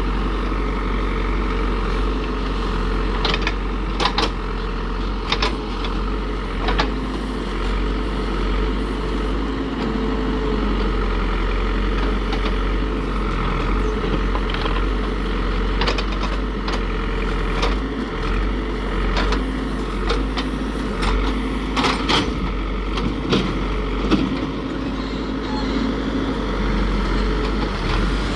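Caterpillar heavy construction machine's diesel engine running steadily, with scattered sharp clanks and knocks.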